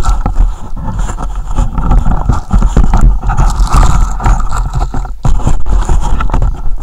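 Camera handling noise as the camera is gripped, moved and fitted onto a tripod. The microphone picks up loud, irregular rumbling knocks and scraping.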